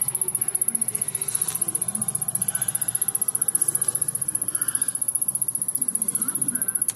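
Samsung CRT rear projection television's power circuitry ticking rapidly and evenly, with a high-pitched edge: the owner takes it for something shorting out inside the set, with none of the internal fuses blown.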